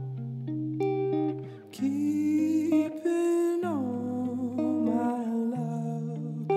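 Background music: plucked acoustic guitar with a wordless humming vocal line that slides between notes in the middle.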